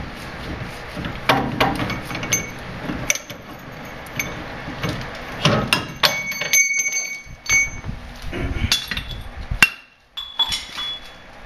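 Steel tools and a C-frame ball joint press working on a front Dana 30 steering knuckle: irregular metal knocks and clinks, several leaving a short metallic ring, while ball joints are pressed.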